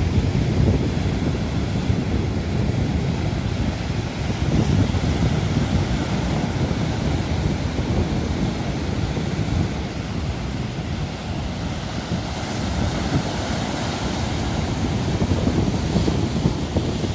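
Storm surf breaking on the shore, with strong wind buffeting the microphone: a steady, loud rumble of noise that swells and eases a little.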